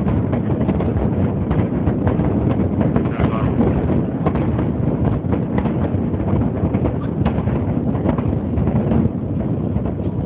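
Fireworks crackling and popping in a dense, continuous stream of small sharp cracks over a steady low noise.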